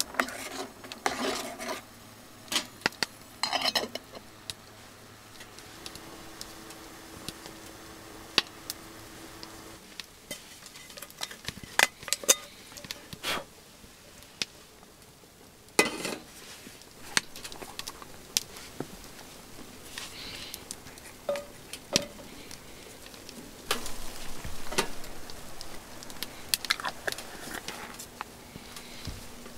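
Metal cookware clattering: a utensil knocking, tapping and scraping against a pot in scattered sharp clicks that come in clusters.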